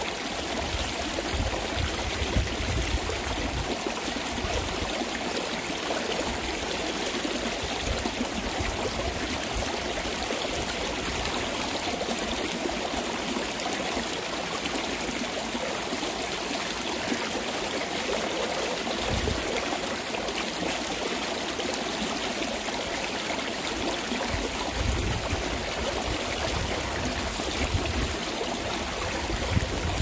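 Mountain stream running steadily over rocks, swollen after days of winter rain.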